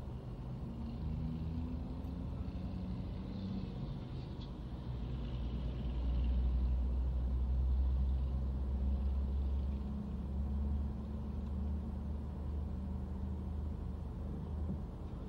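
Car driving on the road heard from inside the cabin: a steady low rumble of engine and tyre noise that swells louder for a few seconds midway.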